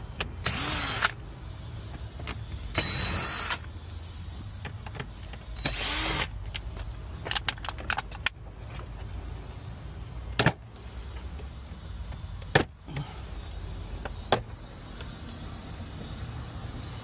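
Small power screwdriver running in three short whirring bursts as the glovebox screws are backed out, followed by a few sharp plastic clicks as interior trim clips are pried loose.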